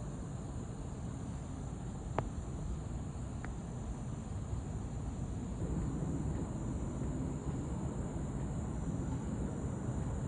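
Outdoor ambience with a steady chorus of insects over a low rumble, and one sharp click about two seconds in.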